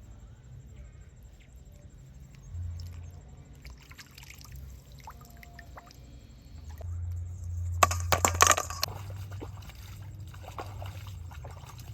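Water sloshing and splashing, with a loud burst of splashing about eight seconds in.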